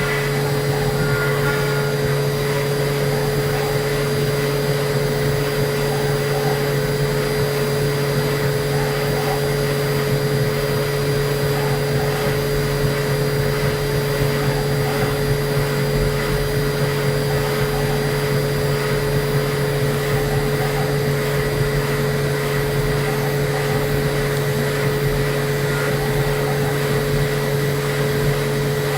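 Milling machine running steadily, a constant low hum with a steady whine above it and no breaks.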